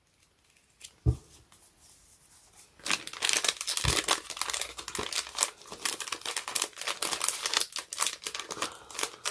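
Packaging crinkling and rustling as it is handled. The crinkling starts about three seconds in, after a soft knock about a second in.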